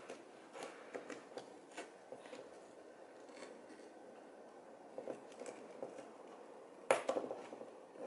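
Small metallic clicks and scrapes as the retaining clip on an NRG steering-wheel quick-release hub is pried out of its groove, with a sharper click and a few quick ones just before the end.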